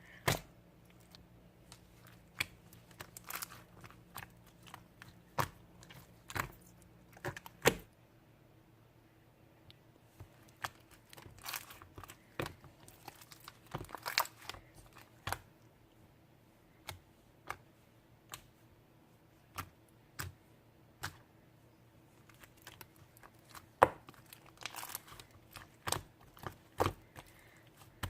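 Clear slime being played with by hand: irregular sharp pops and clicks a second or more apart, with a few short clusters of squishing.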